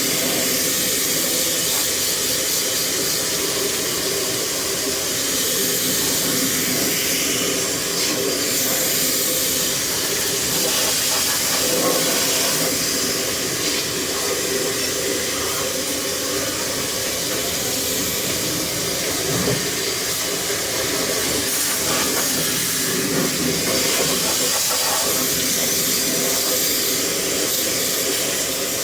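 Steady hissing spray of water from a pressure washer rinsing an air conditioner during cleaning, with a faint motor hum underneath.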